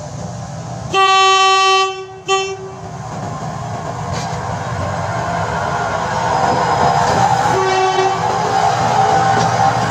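Bathara Kresna diesel railbus sounding its horn: a long blast about a second in, a short blast right after, and a fainter short blast around eight seconds in. Meanwhile the rumble of its engine and wheels on the street-running track grows steadily louder as it approaches and passes.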